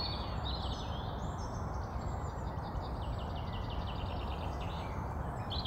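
Outdoor ambience: a steady rumble of background noise with small songbirds singing high chirps, including a rapid trill of repeated notes in the middle.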